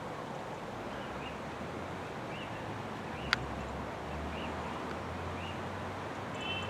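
Outdoor park ambience: steady background noise with a small bird chirping over and over. There is a single sharp click about three seconds in, and a low rumble through the second half.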